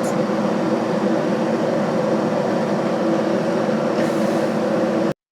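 Steady machine hum with several low droning tones, cutting off abruptly near the end.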